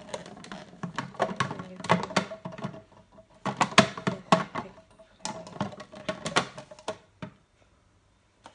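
Clear hard-plastic parts of a Philips HR7627 food processor clicking and knocking together as the pusher and accessories are fitted into the bowl: a rapid, uneven run of clatters that stops about seven seconds in.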